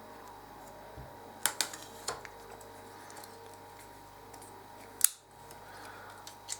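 Light metallic clicks from handling a stainless-steel multitool: a few small ticks over the first couple of seconds, then one sharper click about five seconds in.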